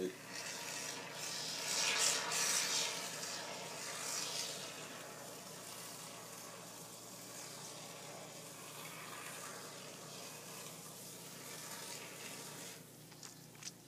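Great Stuff Gaps and Cracks expanding foam hissing out of its aerosol can as a bead of foam is laid down. It is loudest a couple of seconds in, then settles to a fainter steady hiss that stops near the end, followed by two small clicks.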